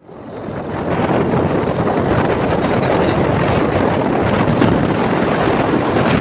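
Wind buffeting the microphone on a moving motor scooter: a loud, steady rushing noise that builds up over the first second.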